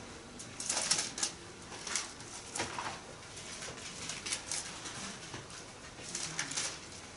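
Thin Bible pages being leafed through by hand: a series of short papery rustles and flicks, loudest about a second in.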